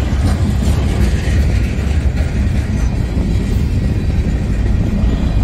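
Freight train of covered hopper cars rolling past close by, its wheels on the rails making a steady, loud rumble.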